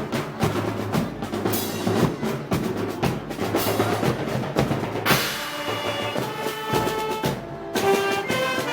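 Festival parade band music: drums and cymbals beating a rhythm, with brass and wind instruments coming in with held notes about five seconds in.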